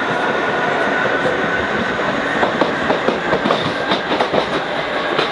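Train running, heard from inside the carriage: steady running noise with a thin steady whine in the first half, then a rapid irregular clatter of wheels over rail joints and points from about two seconds in.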